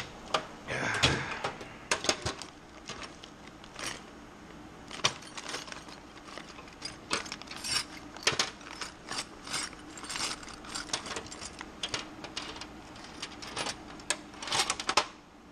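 A steel tool chest drawer sliding open about a second in, then screwdrivers and other metal hand tools clinking and rattling in the drawer as they are rummaged through, in many short irregular clicks, busiest near the end.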